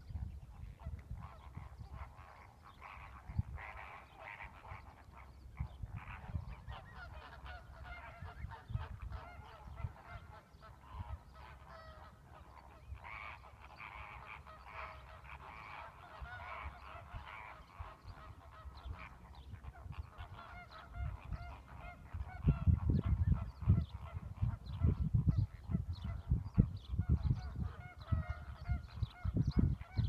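A large flock of waterbirds calling far off, many overlapping calls without a break. From about two-thirds of the way through, gusts of wind buffet the microphone and become the loudest sound.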